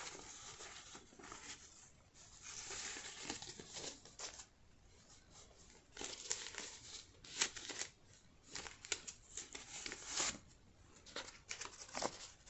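US dollar bills rustling and crinkling as they are handled and counted, in a run of short, irregular bursts.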